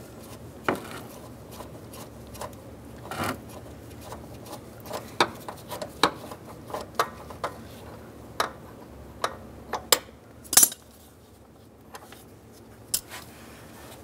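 Irregular metal clinks and taps of a ratchet, extension and 13 mm socket working at a truck door hinge bolt, the loudest about ten seconds in.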